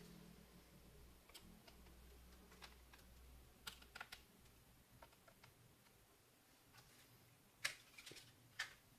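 Faint, irregular clicking of laptop keys being pressed, with two sharper clicks near the end.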